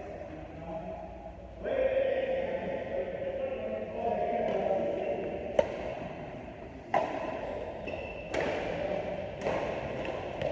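Badminton rackets hitting a shuttlecock during a rally: four sharp cracks in the second half, about a second to a second and a half apart, with people's voices in the hall.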